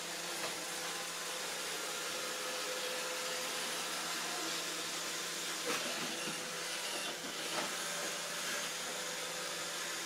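iRobot Roomba robot vacuum running steadily across a wooden floor, an even hiss with a faint steady tone. There is a light knock about half a second in and two more a little past the middle.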